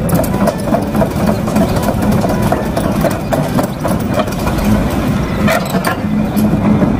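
Excavator's diesel engine idling: a steady, heavy low engine note with an even, fast knock.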